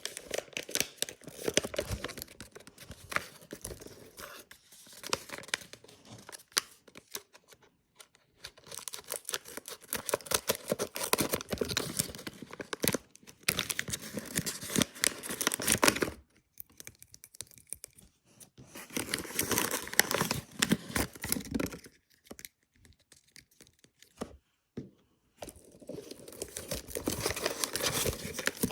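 Paper packaging being handled, crinkled and torn open by hand, in crackly spells several seconds long with short pauses between them.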